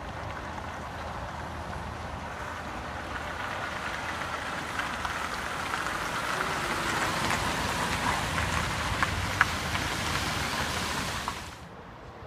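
Cars driving on a wet road, their tyres hissing on the wet asphalt and growing louder as they approach and pass close by, with a few sharp clicks. The sound cuts off suddenly near the end.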